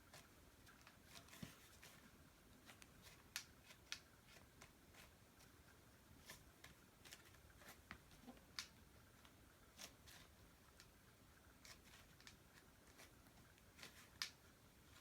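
Campagnolo Eurus bicycle wheel twisted hard by hand, giving irregular sharp snapping clicks, a few much louder than the rest. It is the same click the wheel makes under the rider's weight on the road, of a cause the owner does not know.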